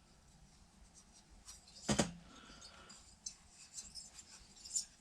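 Chainsaw engine parts being handled during a teardown: one sharp knock about two seconds in, with faint clicks and light rubbing around it.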